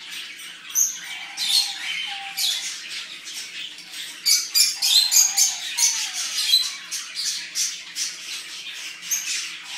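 Repeated high chirps and harsh squawks from caged pet-shop animals, coming thick and fast from about four seconds in, with a few short wavering cries lower down.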